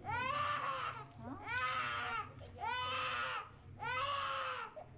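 A baby crying hard: four high-pitched wails of about a second each, with short catches of breath between them.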